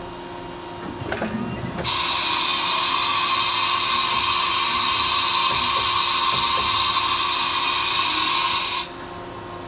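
Haas VF-0 umbrella tool changer cycling: a few light clunks as the carousel moves in under the spindle, then a steady loud hiss of compressed air for about seven seconds that cuts off sharply, the air blast that blows through the spindle taper while the tool is released.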